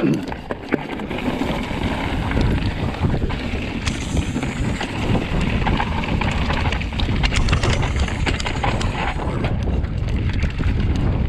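Titanium hardtail mountain bike riding down a loose slate and gravel trail: tyres crunching over the stones and the bike rattling and knocking over rocks, with wind buffeting the microphone as a steady low rumble.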